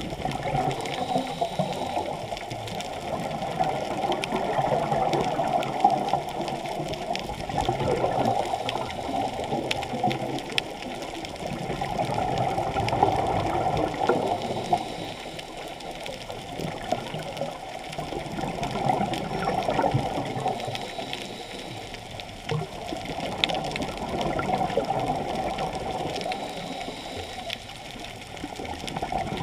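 Muffled rushing water heard underwater through a camera housing, swelling and easing every several seconds.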